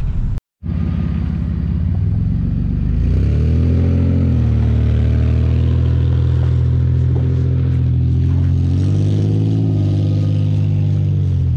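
Toyota Tacoma pickup's engine revving hard and held at high revs while the truck drifts sideways through snow. The revs dip briefly, climb again, then drop near the end.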